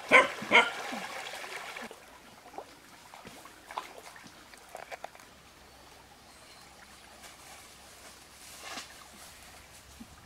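A domestic goose gives two short, harsh honks in quick succession right at the start, the loudest sounds here. After that it goes quiet except for a faint trickle of water and a few soft, brief noises.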